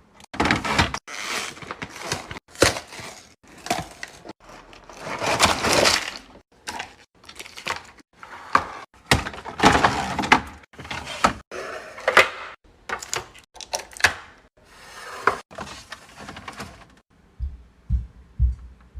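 Packaged food and drinks being handled and set into a mini fridge: a quick run of clicks, knocks and taps, with longer crackling and rustling of plastic packaging, easing off to a few soft thumps near the end.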